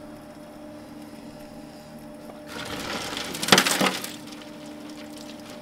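Ice cubes clinking and ice water sloshing as a hand digs into an aluminium ice box, feeling for an ice chunk that has clogged the coolant pump. The sound comes as one rattling burst about two and a half seconds in, lasting under two seconds, over a steady low hum.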